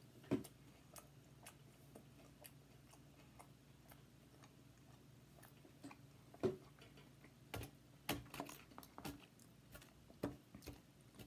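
Close-up eating sounds: a person chewing food, with scattered wet mouth clicks and smacks at an irregular pace, more frequent in the second half, over a faint low room hum.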